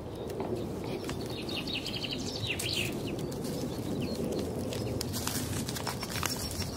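Birds chirping in a background soundscape track over a steady low noise, with a run of quick chirps about two to three seconds in.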